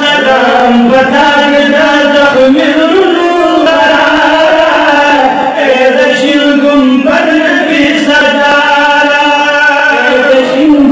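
A male voice chanting a Pashto naat (devotional poetry in praise of the Prophet) without instruments, in long, held notes that slide and bend in pitch.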